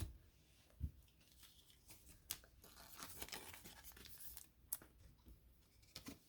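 Faint rustling and a few light taps as trading cards and their packaging are handled, with a soft crinkling stretch in the middle.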